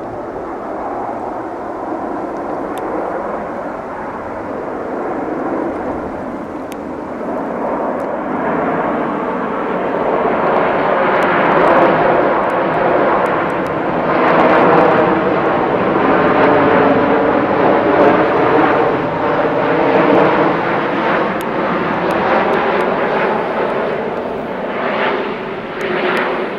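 Twin-engine jet airliner flying low overhead. The engine noise builds over the first several seconds and stays loud through the rest.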